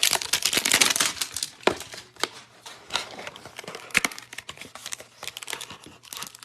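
Plastic wrapping crinkling and tearing as a Topps trading-card hanger box is opened. The crinkling is dense for about the first second, then thins to scattered crackles and clicks.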